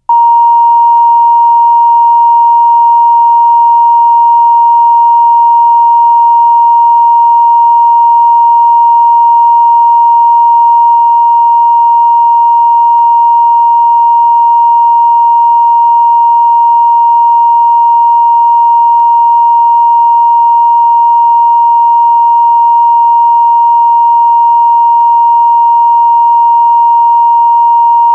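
Videotape line-up test tone played with the colour bars: one loud, steady, unbroken beep held at a single pitch.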